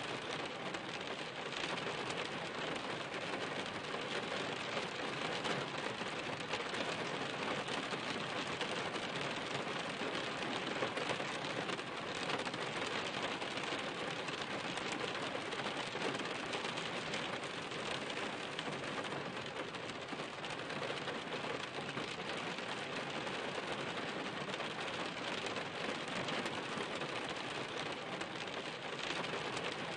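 Steady rain falling on a surface, a dense even spread of drops that neither builds nor eases.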